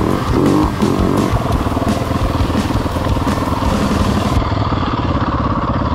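Yamaha WR dirt bike engine running under way, heard close from a camera on the bike; about four seconds in the sound cuts to a steadier engine note.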